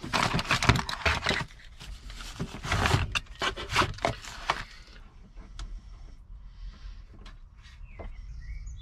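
Rustling and crinkling of paper and plastic packaging as a GPS screen and mount are lifted out of a cardboard box, for about the first five seconds. After that come a few quieter light clicks.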